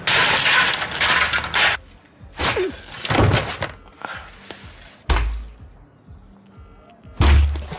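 Music with a series of heavy thuds: a loud noisy burst at the start, then separate deep thumps every second or two, the strongest near the end.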